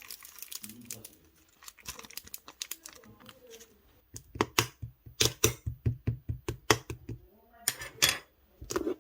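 Pink clay-mixed slime being pressed and poked by hand, making sticky clicks and pops, with a fast run of about five clicks a second in the middle.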